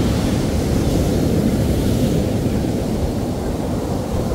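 Heavy surf from a post-typhoon swell breaking and washing up the beach, a steady rushing noise, with wind rumbling on the microphone.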